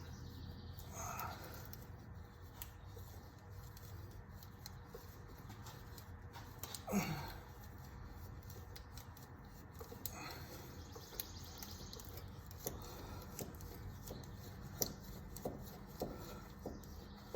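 Scattered faint metallic clicks and taps from a self-tightening oil filter wrench being worked on a car's oil filter to break it loose, with a brief voice sound about seven seconds in.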